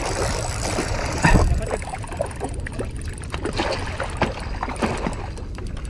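Water splashing and sloshing at the shoreline as a hooked barracuda thrashes at the surface, loudest about a second in, while a spinning reel is cranked. A steady low wind rumble on the microphone lies underneath.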